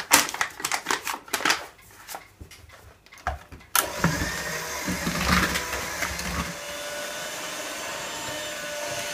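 Paper flour bag rustling as flour is poured, then an electric hand mixer switched on suddenly about four seconds in and running steadily, its beaters churning the flour into a stiff dough, heavier at first and then more even.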